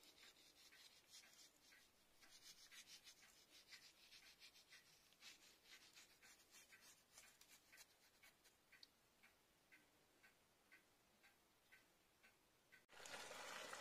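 Near silence with faint, scattered light ticks that settle into an even tick about twice a second. About a second before the end, a faint sizzle starts: capelin frying in a pan without oil.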